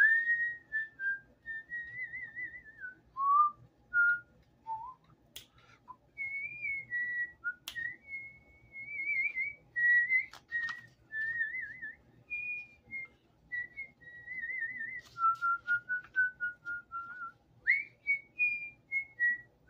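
A person whistling a slow, wandering tune: single notes stepping up and down, some held and some warbled in quick trills. A few sharp clicks come through between the notes.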